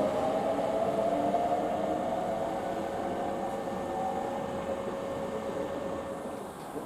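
Hankyu electric train running, with a whine of a few steady tones, one of them slowly rising in pitch, over rail noise. The whole sound fades gradually.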